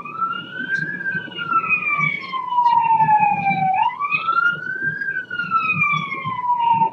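Police siren in wail mode: two slow cycles, each sweeping up quickly and gliding down more slowly, then stopping abruptly at the end.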